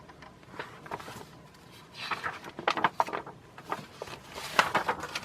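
Paper catalog being handled and its pages turned: irregular clusters of rustling and crackling, busiest in the second half.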